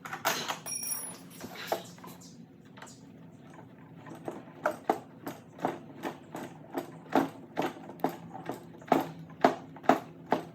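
A screw being started into a chainsaw's handle assembly with a hand tool, some handling clatter at first, then a steady run of sharp clicks about two or three a second.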